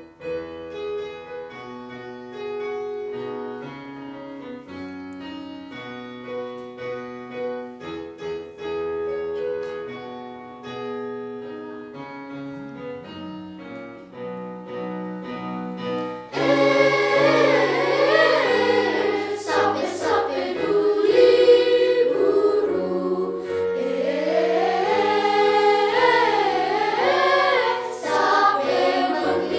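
Electronic keyboard playing an instrumental introduction of steady chords and melody, then, a little over halfway, a children's choir comes in singing over the keyboard accompaniment, noticeably louder.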